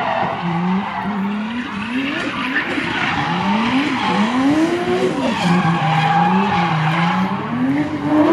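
Volvo 940 with a swapped-in Toyota 2JZ straight-six, revving up and down over and over while drifting. The rear tyres are skidding and squealing under a steady hiss.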